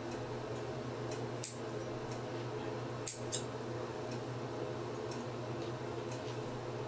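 Scissors snipping through a dog's fur: one sharp snip about a second and a half in, then two close together about three seconds in, over a steady low hum.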